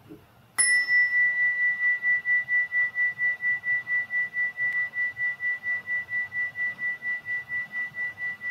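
A meditation chime struck once about half a second in, ringing on at one clear high pitch that pulses several times a second as it slowly fades.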